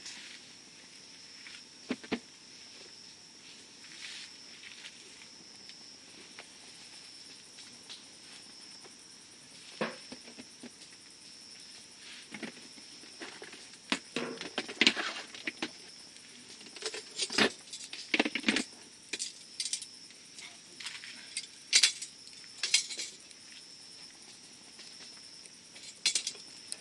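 Campfire crackling, with scattered sharp pops and snaps that come more often from about halfway through to three-quarters of the way through.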